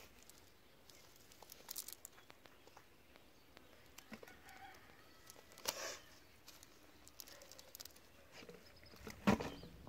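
Cast-net mesh being handled and picked through by hand: faint rustling and small clicks, with two louder rustles, about six and nine seconds in.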